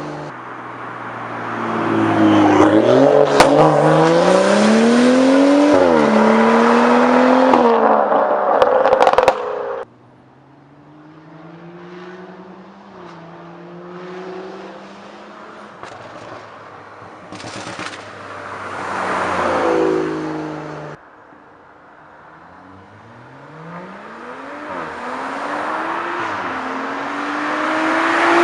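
A BMW M235i's straight-piped N55 turbocharged inline-six accelerating hard, the engine note climbing and then dropping back at each gear change, with a few sharp exhaust cracks. The sound comes in several separate takes, the loudest in the first third.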